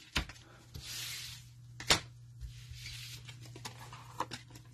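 Mosaic football trading cards being handled on a tabletop: a few sharp taps and clicks, the loudest about two seconds in, with brief rustles around one and three seconds in, over a faint steady low hum.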